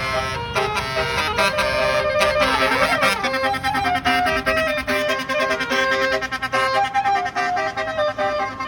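Bus basuri (telolet) musical air horn playing a reedy melody, the tones changing in steps, with a quick dip and rise in pitch about two and a half seconds in.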